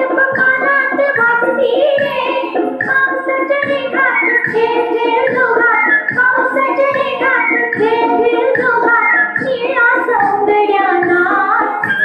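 A song with a high singing voice over instrumental backing and a steady beat.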